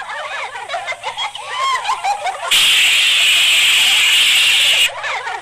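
Cartoon sound effects: a run of quick squeaky chirps, then about two and a half seconds in a loud steady hiss that lasts a little over two seconds and cuts off suddenly.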